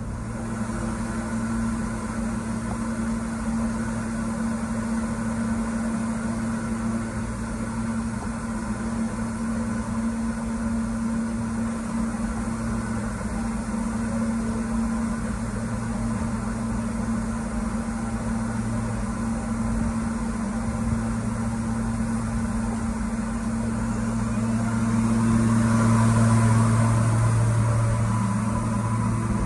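Subway train standing at the platform, its onboard equipment humming steadily with a low, even drone; the hum swells louder with more hiss near the end.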